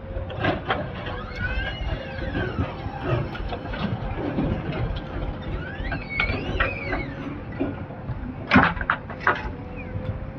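Backhoe loader at work: the diesel engine runs with a steady hum, a whine that rises and falls twice, and a couple of sharp knocks near the end.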